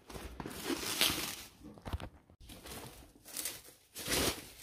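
Bubble wrap around a boxed bathroom scale crinkling and rustling as it is handled and pulled from its packaging, in irregular bursts, loudest about a second in and near the end.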